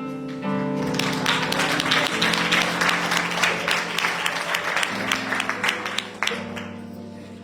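A congregation applauding over soft instrumental music of sustained chords. The clapping starts about a second in and dies away about a second before the end, leaving the music.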